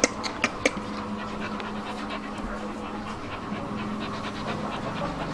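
Dogs panting while waiting to be fed, with three sharp clicks in the first second and fine, fast, irregular ticking after.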